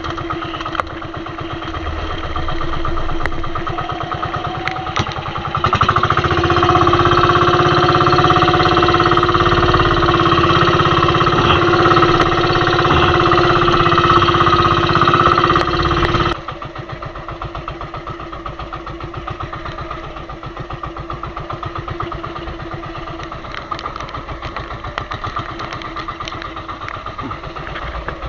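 Small fishing boat's engine running steadily; it gets louder about six seconds in, then drops back abruptly about ten seconds later.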